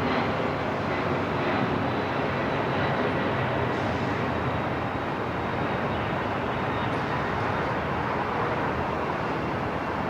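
Steady airport ambience: an even, unbroken roar of noise like a jet aircraft engine running, with a faint thin high whine held throughout.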